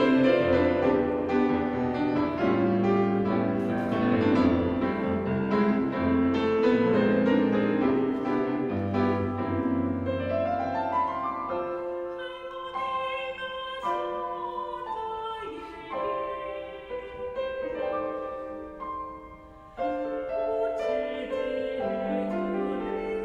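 Choir singing a bossa-nova-style piece with piano accompaniment. About halfway through, a quick rising run of notes leads into a thinner passage of lighter, separately placed chords, which fills out again near the end.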